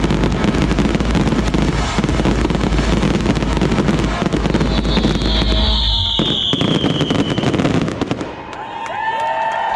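Fireworks finale: a dense barrage of crackling and bangs over a deep rumble of booms, with a falling whistle about halfway through. The barrage stops about eight seconds in and crowd voices rise in its place.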